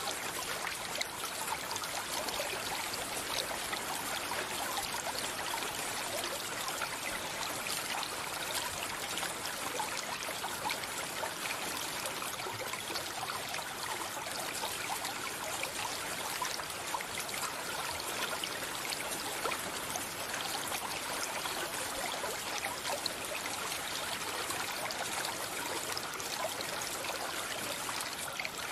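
Stream flowing steadily: an even, unbroken rush and trickle of running water.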